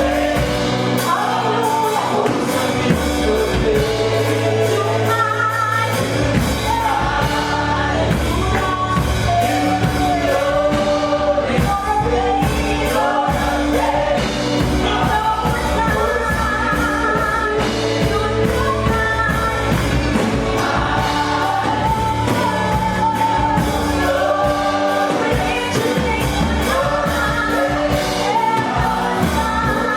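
Gospel praise music: singers with a backing band, sustained melodic lines over steady bass and drums.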